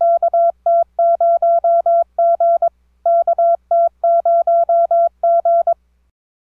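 A single Morse code tone keyed in short and long beeps, sending the call sign KTQG twice with a pause between the two sendings.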